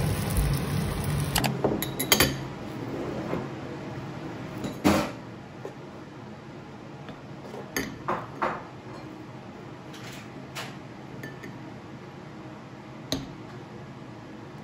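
Metal spoon scooping and scraping thick soaked oats in a ceramic bowl, with a handful of sharp clinks of spoon against bowl, the loudest about five seconds in.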